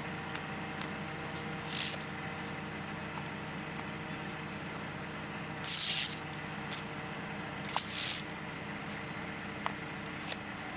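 Chainsaw engine running steadily, with three short hissing noises about two, six and eight seconds in.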